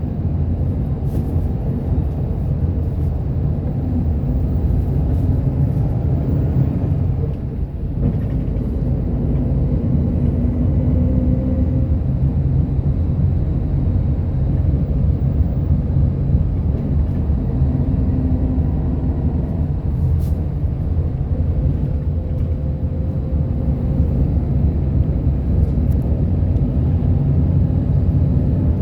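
A bus driving, heard from inside the cabin: a steady low engine and road rumble, with the engine's pitch slowly rising and falling as it changes speed and a brief dip in loudness about seven seconds in.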